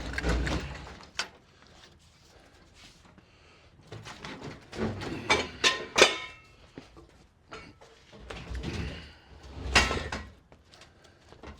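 Steel 1967 Volkswagen chassis being wrestled across the floor by hand: irregular metal clanks, knocks and scrapes in three bunches, with a short metallic ring about six seconds in.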